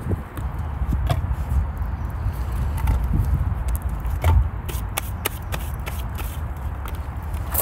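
Split hardwood logs knocking and clunking as they are handled and laid into a steel firebox, with scattered rubbing and shuffling. A steady low rumble lies underneath.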